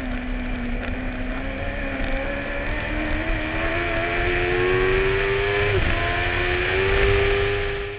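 Suzuki engine of a racing sidecar heard onboard at full throttle, its pitch climbing steadily through a gear, dipping briefly at an upshift about six seconds in, then climbing again.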